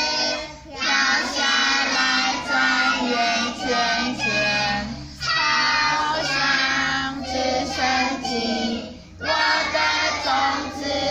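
A class of young children singing a song together in Mandarin, in phrases with short breaks between them.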